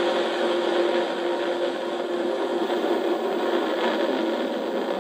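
Rocket engines at liftoff, heard as a steady rushing noise.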